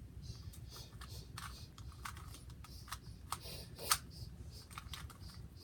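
Rubik's cube layers being turned by hand: irregular plastic clicks and clacks, one louder clack about four seconds in.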